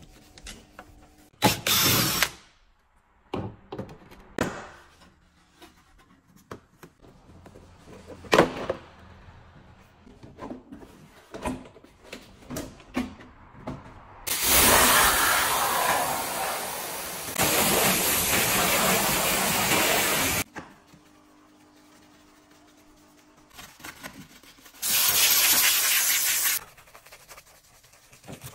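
Car detailing workshop sounds. A short burst of steam-cleaner hiss comes about two seconds in. Then there is a run of scattered clicks and knocks as trim and bumper parts are handled, and later two long stretches of loud, steady hissing noise.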